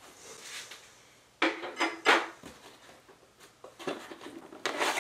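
A long thin metal bar being handled and put down: a soft rub, then a cluster of clattering metal knocks and scrapes about one and a half to two seconds in, and another knock near the end.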